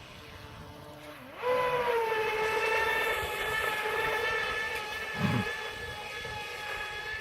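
Radio-controlled model boat's motor throttling up suddenly about a second and a half in, then running at a steady high whine. A brief low thump about five seconds in.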